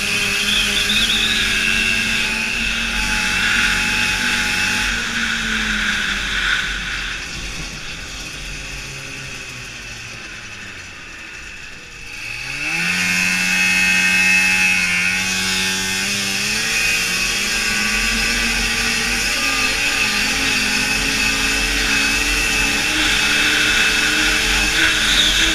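Two-stroke snowmobile engine under way, easing off about five seconds in and dropping to low revs. It revs back up sharply around twelve seconds in, then climbs slowly in pitch as the sled gathers speed, over a steady hiss.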